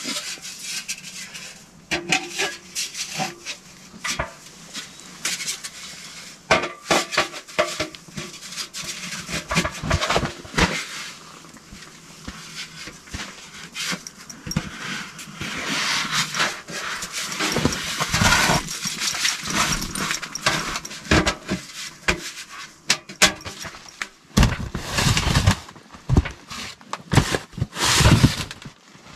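Irregular knocks, clunks and cracks of firewood and the wood stove's metal parts being handled, with a spell of heavy low rumbling near the end.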